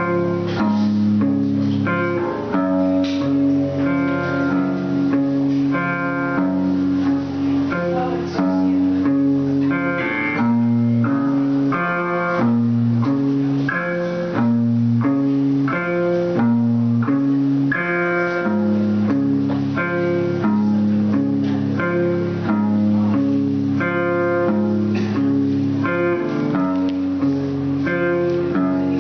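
Live instrumental music: a repeating figure of plucked-sounding notes changing about twice a second over a low bass line, played as a loop.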